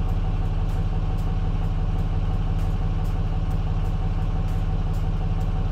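Dodge Ram 3500's 6.7-litre Cummins turbo-diesel idling steadily, heard from inside the cab, with a freshly replaced crankshaft position sensor.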